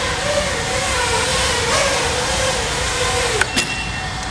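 Emax Buzz FPV quadcopter's motors and propellers whining, the pitch wavering with throttle. About three and a half seconds in the whine falls away steeply with a short knock as the quad lands and is disarmed.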